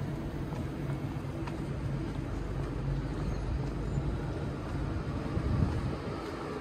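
Steady low rumble of a running passenger train (Vectron locomotive hauling IC1 coaches), with a steady hum underneath and a faint click or two.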